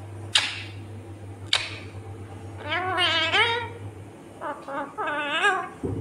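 Rose-ringed (Indian ringneck) parakeet calling: two short sharp calls in the first couple of seconds, then two wavering, warbling phrases near the middle and toward the end.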